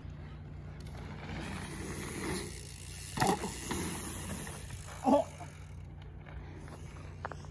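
Mountain bike riding a dirt pump track: knobby tyres rolling and scrubbing over packed dirt, with the rear hub's freewheel ticking while the rider coasts. Two brief louder sounds come about three and five seconds in.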